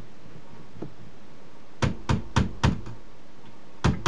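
Sharp knocks and clacks of the monitor's sheet-steel chassis and power-supply cover being handled and lifted off: a quick run of about five knocks a bit under two seconds in, then one more near the end.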